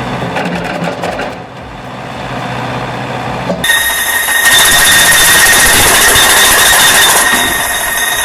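Heavy wood-processing machinery running with a low hum. About three and a half seconds in, it switches abruptly to a much louder grinding noise with a steady high-pitched whine.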